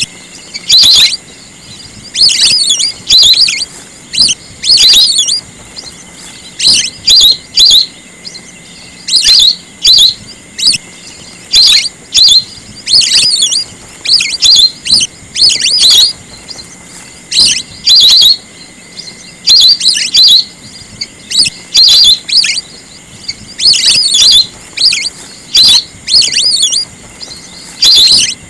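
Lesser whistling ducks giving loud, shrill whistled calls: short clusters of high twittering whistles, repeated about every second or two.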